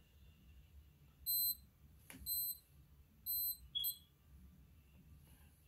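Heat press timer beeping at a high pitch, three beeps about a second apart and then a shorter fourth, signalling the end of the timed press. A single click falls between the first two beeps.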